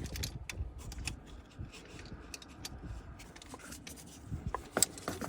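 Irregular sharp clicks and taps of a torque wrench and socket being worked on the crankshaft pulley bolts, a few louder clicks near the end, over a low rumble.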